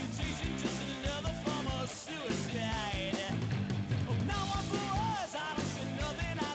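Rock song playing: a singing voice over drums and a full band at a steady beat.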